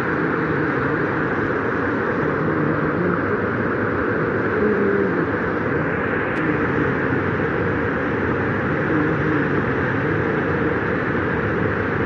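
Steady, loud rush of floodwater flowing across a road and pouring down a rock face in heavy runoff.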